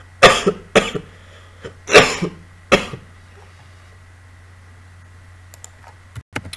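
A man coughing four times in the first three seconds, in short harsh bursts. A faint steady hum runs underneath.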